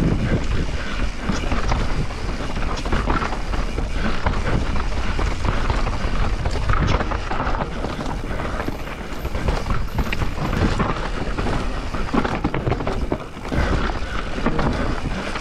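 Transition Spire enduro mountain bike (170 mm travel, 29-inch wheels) descending a dry, loose trail: tyres rolling over dirt and stones with a constant clatter and rattle of knocks from the bike, and wind noise on the microphone.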